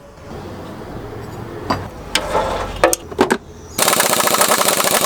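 Impact wrench hammering rapidly on a bolt for about two seconds, starting near the end, after a few quieter tool clicks and knocks. The bolt is seized, its aluminium threads galled, and is being forced out.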